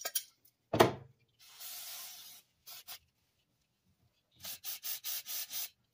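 A sharp knock a little under a second in, then hissing sprays of aerosol carburetor cleaner onto an A/C line fitting: one longer burst, and near the end a quick run of about seven short bursts.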